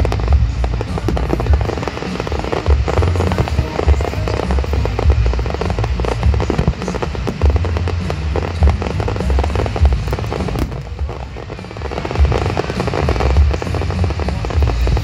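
Fireworks display going off: a dense run of bangs from aerial shells and ground fountains, with a deep rumble beneath, easing a little around eleven seconds in before building again.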